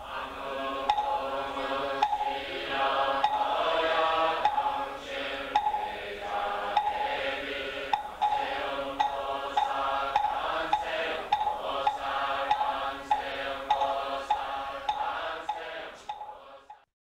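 Many voices chanting together in unison, kept in time by a steady beat of sharp knocks about twice a second; the chant breaks off near the end.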